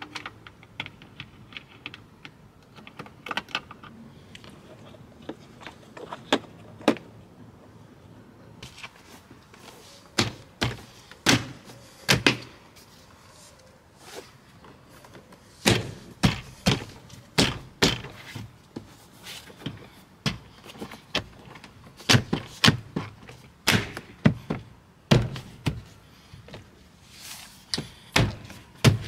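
Mercedes W205 rear door trim panel being knocked and pressed back onto the door by hand: a long series of sharp thunks in several clusters, with lighter taps at first.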